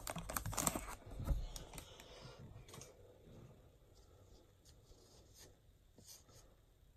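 Plastic wrapper of a baseball card pack crinkling and crackling as it is torn open. It is loud for about the first second, then dies down to a few faint scattered ticks and rustles.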